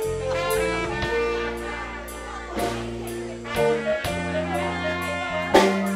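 Live blues band playing an instrumental passage: held lead notes over a bass line and a steady beat, with a sharp, loud drum hit near the end.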